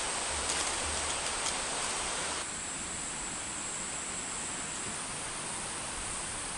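Steady outdoor ambience: an even hiss with a high, constant insect drone. About two and a half seconds in the sound changes abruptly, losing a faint low rumble and a few soft rustles, and the drone carries on a little stronger.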